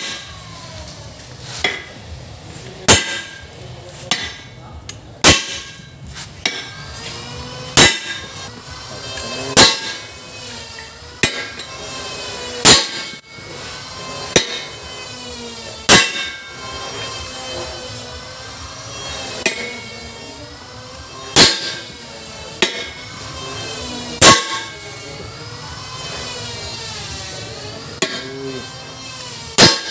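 Steel club hammer striking a splined flange to drive it down onto the truck power divider's shaft over a bearing during reassembly. Each blow is a sharp metallic clang with a brief ring, coming at an uneven pace of about one every one to two seconds.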